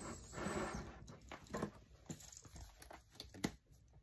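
Handling of a cash-envelope binder on a wooden desk: a rustle of paper and plastic over the first second, then scattered light taps and knocks, the loudest a sharp click about three and a half seconds in.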